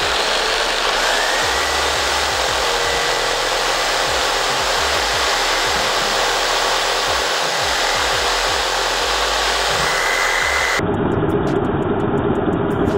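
Corded electric jigsaw running and cutting through a dry wooden branch: a steady motor whine over the blade's rasping. Near the end the sound turns duller and deeper.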